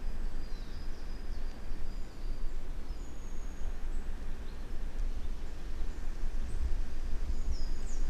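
Forest ambience: a steady, uneven low rumble with a few short, thin, high bird whistles scattered over it, the clearest a quick falling call near the end.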